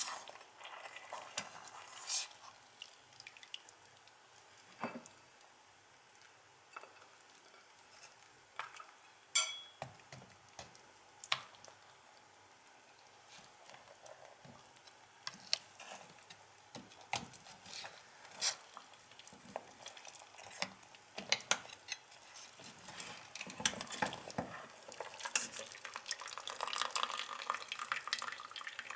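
Metal carving fork clinking and scraping against a stainless steel pot while a boiled wild boar head is prodded and turned in its broth, with scattered sharp knocks. Near the end the broth drips and splashes more densely as the head is lifted out of the pot.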